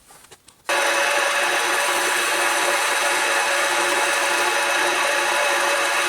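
Smart and Brown model L metal lathe running steadily with a turning tool cutting a spinning wooden file handle. The sound starts abruptly less than a second in, after a brief near silence.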